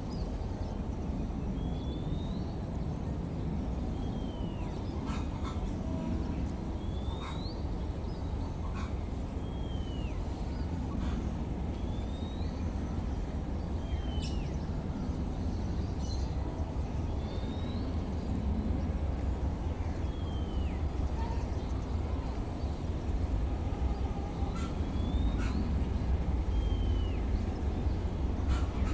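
Low, steady rumble of trains moving slowly through a rail yard, growing a little louder in the second half. Over it a bird gives short chirps that rise or fall, repeating every second or two, with a few faint clicks.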